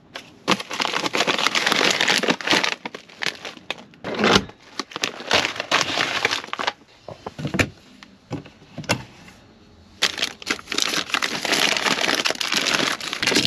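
Plastic food packaging crinkling as bags are handled and rummaged through, in two long stretches with a couple of knocks in between.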